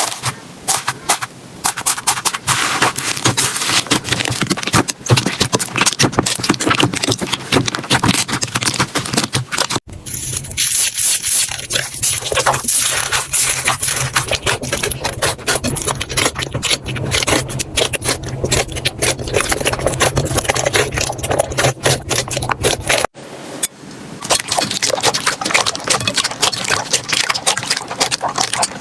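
Slime being squeezed, poked and stretched by hand, giving dense, fast crackling and popping clicks. The sound changes abruptly twice as one slime clip cuts to the next; the middle one has a steady low hum under it.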